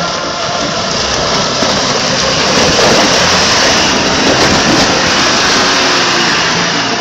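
Off-road vehicle's engine running hard, a loud rough noise that swells and then eases off near the end.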